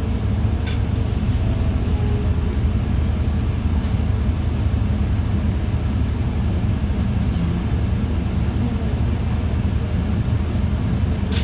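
City bus driving, heard from inside: a steady low engine and road rumble, with a few brief clicks or rattles.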